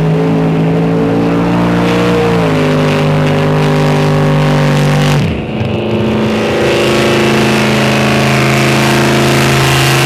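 Drag-racing truck engines running hard at full throttle, a loud steady drone. The pitch steps down about two and a half seconds in, then drops sharply and picks back up about five seconds in.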